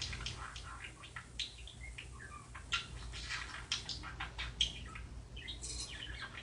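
Small birds chirping and twittering in many short, quick calls over a steady low hum.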